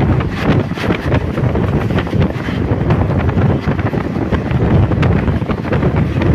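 Wind buffeting the microphone of a phone held out of a fast-moving Indian Railways passenger coach, over the low rumble of the train running on the track, with many short rattles and knocks through it.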